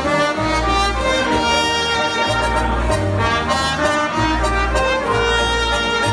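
Live jazz band playing an upbeat dance number: trumpet and saxophone lead over an electric keyboard, with full held bass notes underneath.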